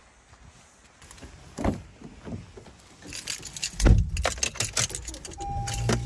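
Car keys jangling and clicking as someone gets into a Honda Civic sedan, with the driver's door shutting in a heavy thump about four seconds in. Near the end a steady electronic warning beep from the car starts.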